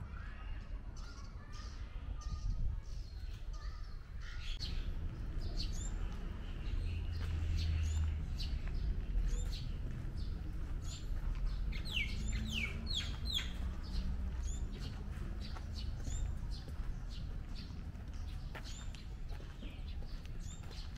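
Birds calling repeatedly in short high chirps, with a quick run of falling calls about twelve seconds in, over a steady low rumble.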